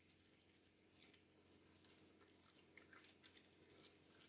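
Near silence: room tone with a few faint soft ticks and clicks.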